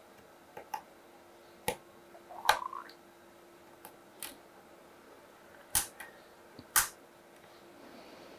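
Sharp plastic clicks and snaps of a spudger prying flex-cable connectors off a phone's circuit board. About eight irregular clicks, the loudest about two and a half seconds in and twice near the two-thirds mark, over a faint steady hum.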